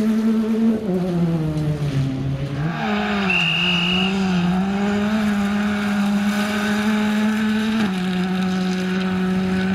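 Ford Fiesta rally car's engine pulling hard on a gravel stage: the note sags as the driver lifts about a second in, climbs again under power and holds, then drops suddenly near the end at a gear change. A short high squeal-like tone sounds over it about three and a half seconds in.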